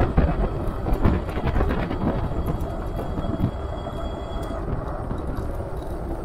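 Super73 S2 electric bike being ridden: steady tyre and road rumble with rattling knocks from bumps, the sharpest just after the start and about a second in, and a faint thin high whine for about a second in the middle.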